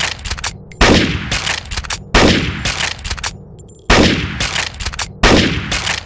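Mauser Gewehr 98 bolt-action rifle firing four shots roughly a second and a half apart, each a sharp crack with a long fading tail and a few quick clicks after it.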